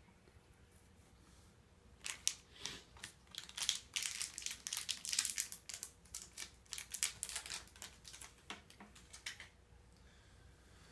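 Crinkling of a candy bar's plastic wrapper as it is unwrapped: rapid crackling rustles starting about two seconds in and stopping shortly before the end.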